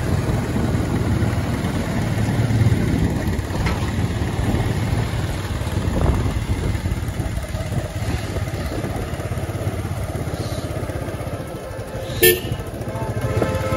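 Steady engine and road noise from a motorbike being ridden through narrow streets, with one short vehicle horn toot about twelve seconds in.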